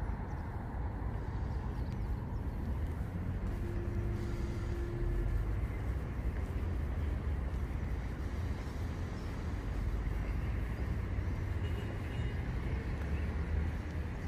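Outdoor city background: a steady low rumble with no distinct events, and a faint brief hum about four seconds in.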